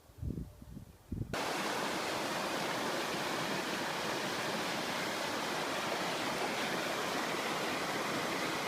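Low buffeting on the microphone, then, a little over a second in, a steady even rush of flowing water cuts in suddenly and runs on unchanged.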